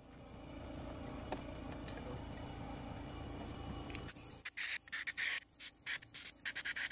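Compressed air from a blow nozzle clearing packed dirt dauber nest out of a car horn. A low rumble builds for about four seconds, then a quick string of short air blasts begins about four and a half seconds in.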